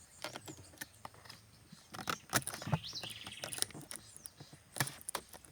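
Scattered clicks and knocks of a plug-in audio cable and its connectors being handled. About three seconds in there is a brief high trilled chirp from a bird.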